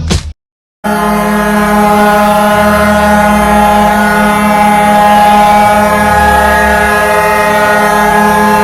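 Hockey arena goal horn: after a short gap of silence, a single long, steady blast starts about a second in, a loud low chord that holds without change.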